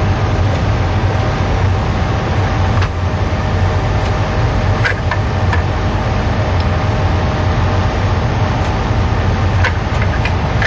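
Boeing 737 on its landing approach: steady jet engine and airflow noise with a low hum and a constant whine, and a few faint clicks.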